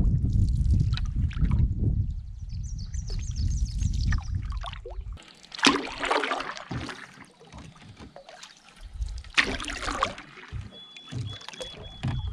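Canoe paddle strokes splashing through the water, three strokes a few seconds apart in the second half. A low rumble fills the first few seconds.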